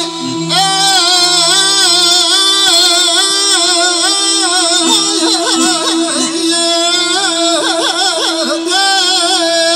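Live amplified Azerbaijani singing: a man's voice holding long, ornamented notes without words over an electric guitar and a steady held accompaniment note.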